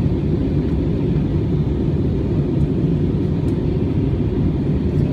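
Steady low rumble of an airliner in flight, engine and airflow noise heard inside the passenger cabin.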